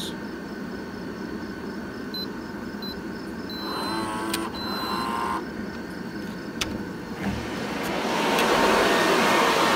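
Door keypad beeping as a code is punched in: a few short high beeps, then two longer ones with a warbling whir. A few clicks follow, and near the end a steady rush of fan and air noise swells up and stays loud.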